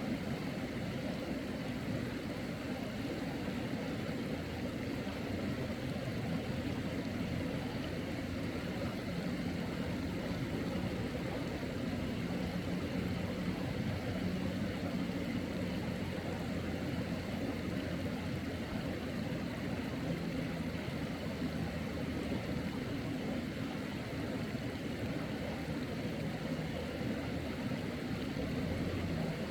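Steady low rushing of a flowing mountain stream, even and unbroken.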